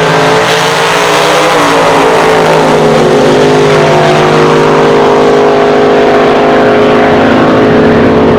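Drag-racing car engine running loud and hard, its pitch climbing over the first couple of seconds and then holding high and steady.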